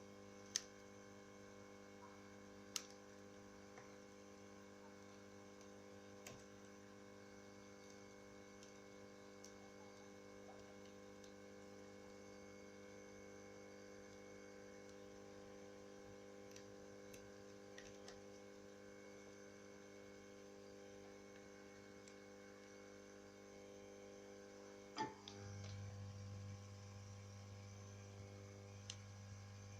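Near silence with a steady electrical mains hum and a few sharp isolated clicks. About 25 s in comes a louder click, after which the low hum gets louder.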